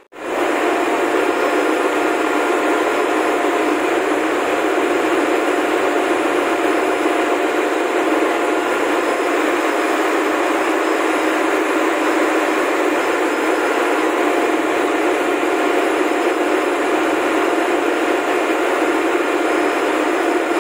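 Steady ship engine-room machinery noise: a continuous, unchanging roar of running machinery with a few faint steady tones in it.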